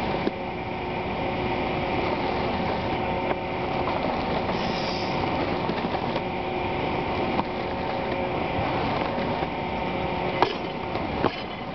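A steady mechanical drone with several held tones runs throughout. Near the end come a few sharp knocks as the loaded barbell is dropped from overhead onto the wooden lifting platform, the bumper plates bouncing.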